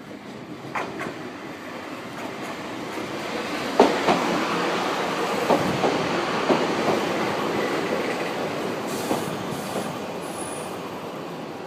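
A Hokuriku Railroad 7000-series stainless electric train passing close by. Its wheels clack over the rail joints in irregular pairs, growing louder for the first four seconds and fading over the last few.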